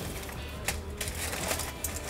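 Aluminium foil crinkling in short crackles as it is pulled open by hand, over soft background music.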